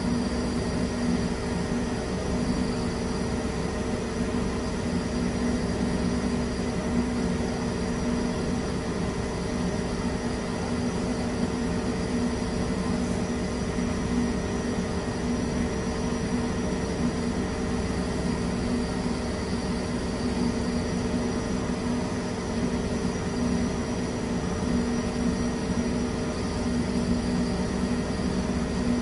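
Steady mechanical drone of laboratory equipment around a radiant-heater fire-test rig: an even rushing noise with a constant low hum.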